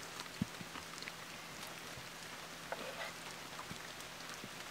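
Light rain falling steadily: a faint, even hiss with a few scattered light ticks.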